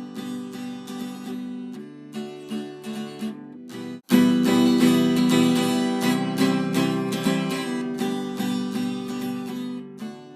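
Acoustic guitar music, plucked and strummed. It cuts out abruptly about four seconds in and starts again, louder.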